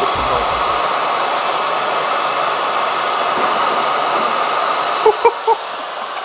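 Steady rushing noise of air from an electric blower. Near the end it eases slightly and three short blips sound.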